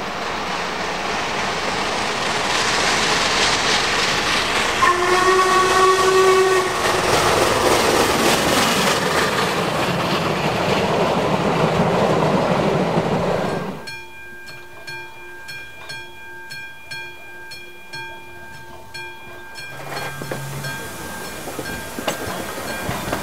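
Steam-hauled train passing close by, with the locomotive's chime steam whistle sounding for about a second and a half about five seconds in. The running noise then drops off suddenly to a much quieter steady hum with a faint regular ticking.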